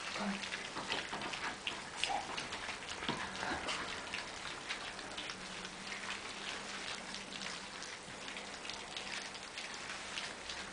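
A litter of four-week-old German shepherd puppies eating side by side from a trough: a dense, irregular patter of small wet smacks and clicks from their lapping and chewing.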